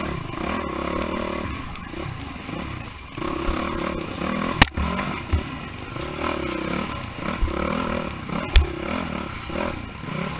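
Enduro dirt bike's engine revving up and down as it is ridden along a rough, rutted woodland trail, heard close from the rider's own bike. Two sharp knocks come from the bike striking bumps on the trail, one about halfway through and one near the end.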